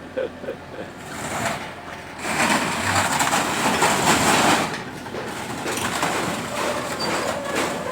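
A mini Kubota machine running, with mechanical noise that swells loud for about two seconds in the middle and then settles to a steady lower level.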